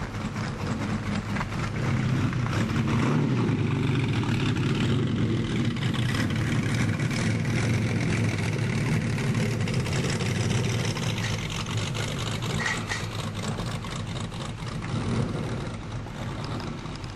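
Lamborghini Countach's V12 engine running as the car pulls away. It gets louder about two seconds in, holds for several seconds, then fades.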